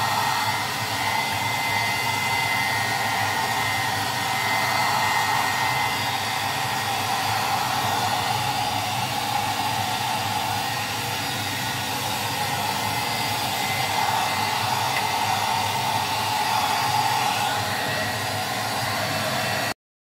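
Hair dryer blowing steadily on a dog's coat, a constant rushing whoosh with a faint high whine. It stops abruptly near the end.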